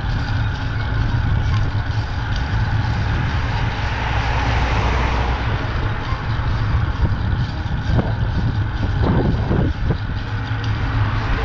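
Steady wind rumble on a bicycle-mounted action camera's microphone while riding on a road, with a motor vehicle going by about four to five seconds in.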